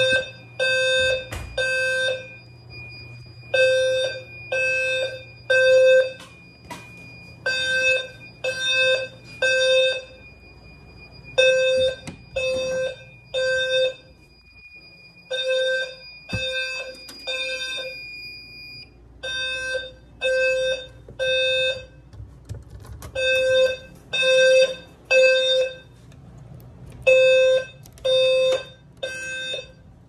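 Fire alarm sounders going off in the temporal-3 evacuation pattern: three short pitched blasts, a pause, repeated. The system is in alarm from a smoke detector set off with test smoke. A steady high tone sounds along with them and stops about two-thirds of the way through.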